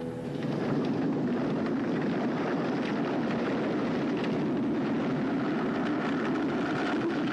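Avalanche sound effect: a snowslide rushing down a mountainside as a steady, unbroken rumble of noise.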